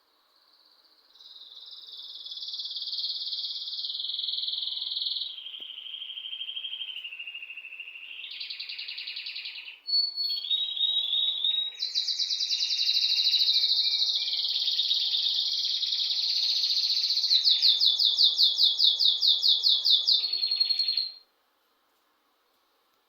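A bird singing one long, unbroken song of changing trills and chirps. It ends in a fast run of repeated notes and then cuts off suddenly.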